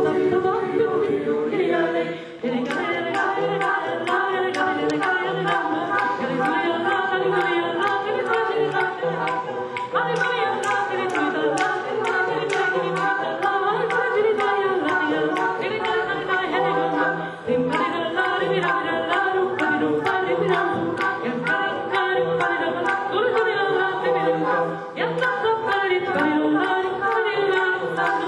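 Mixed choir singing a cappella, a woman soloist's amplified voice carrying the melody over the choir's chords. Sharp clicks recur throughout the singing.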